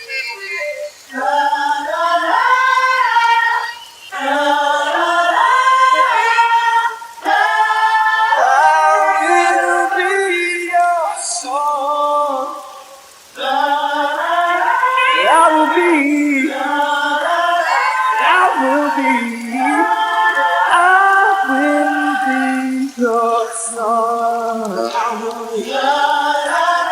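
Wordless a cappella singing: a voice sustaining and sliding between notes in phrases of a few seconds, with short breaks between them.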